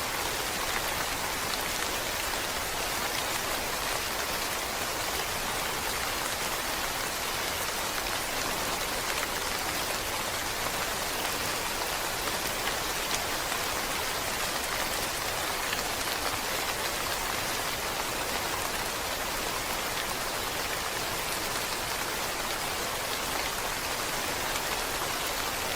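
Steady rain falling, an even, unbroken hiss of many drops with no single drop standing out.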